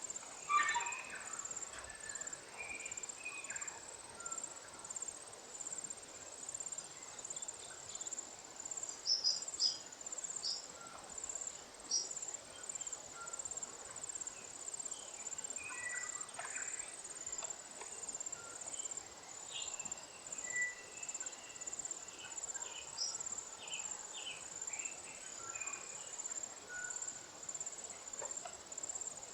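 High-pitched insect chirping at a steady rhythm of about two chirps a second, with scattered short calls and twitters from lesser redpolls, louder than the insect a few times.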